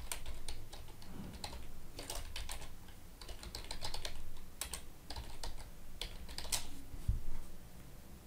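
Computer keyboard typing: irregular keystroke clicks as a search query is typed, with a dull thump about seven seconds in.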